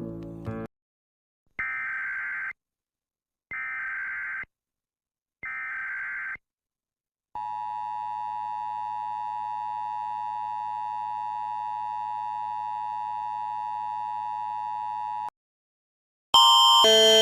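The end of a song, then an Emergency Alert System sequence. Three one-second bursts of digital header data buzz, followed by the steady two-tone EAS attention signal held for about eight seconds. After a short pause, a louder alert tone that alternates in pitch begins near the end, typical of the Canadian Alert Ready attention signal.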